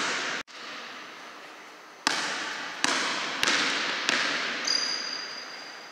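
A basketball bouncing on a gym floor, about four bounces roughly two-thirds of a second apart, each ringing out in the hall's echo.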